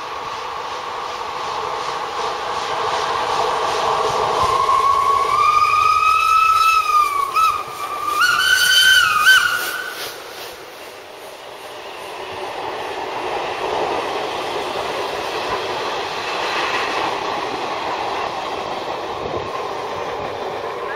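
Steam locomotive working hard as it approaches and passes, sounding its whistle twice: one long blast that slides up in pitch, then a shorter wavering one. Its passing is followed by the coaches rolling by with a steady rumble and clatter of wheels on rail joints.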